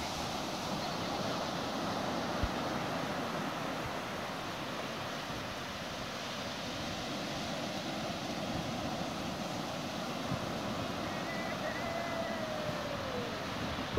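Ocean surf breaking and washing up a sandy beach, a steady rushing noise with wind on the microphone. A faint falling whistle sounds near the end.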